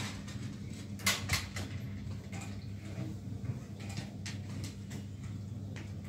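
Faint scattered clicks and light knocks from a cello being handled at its strings near the bridge, over a low steady hum.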